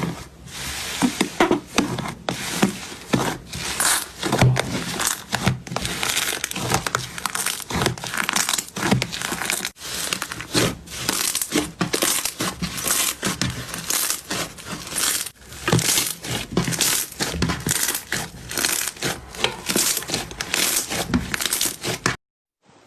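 Slime being squeezed and worked by hand, giving a dense, irregular stream of sharp crackles and pops. It cuts off suddenly near the end.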